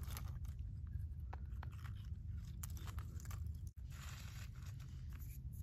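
Fingers poking and shifting spent tubes and loose gravel on the ground: scattered small crunches and clicks over a steady low rumble.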